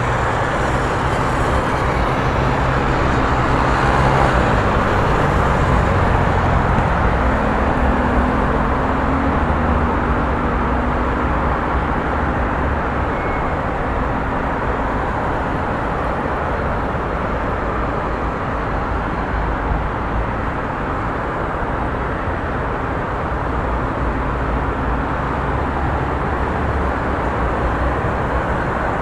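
Road traffic noise: a steady rumble of passing motor vehicles, with an engine's low hum standing out in the first ten seconds or so.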